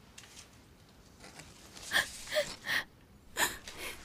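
A person crying quietly: a few short, sharp sobbing gasps and sniffs, starting about two seconds in and coming again near the end.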